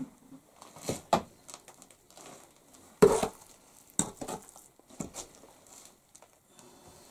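Trowel scooping and scraping wet clay mortar in a metal basin, with a series of short scrapes and knocks against the basin; the loudest comes about three seconds in.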